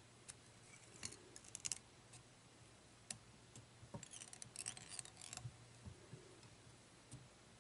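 Faint clicks and crackling from fly-tying tools and materials being handled at the vise: a few clicks about a second in, then a denser patch of crackling snips from about four to five and a half seconds.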